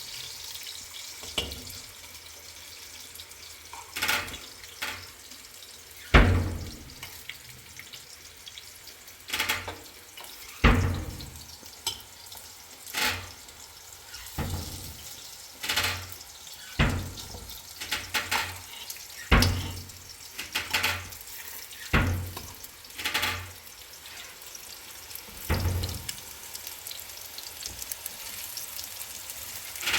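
A series of sharp thumps, irregular and about one to two seconds apart, over a steady hiss; the loudest comes about six seconds in.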